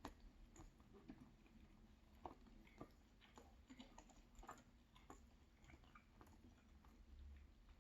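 Faint chewing of a mouthful of almond croissant: soft, irregular mouth clicks and smacks.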